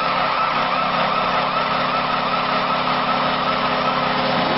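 Hockey arena crowd noise right after a goal, with a steady low droning tone running through it that stops near the end.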